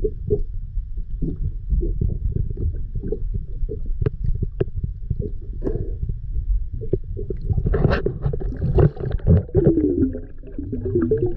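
Underwater recording: a steady low rumble of moving water with frequent small clicks and knocks, and a louder gurgling rush of bubbles from about eight seconds in.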